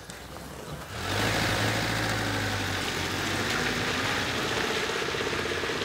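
Engine of a small pickup-style milk van, coming in suddenly about a second in and then running steadily as the van pulls away.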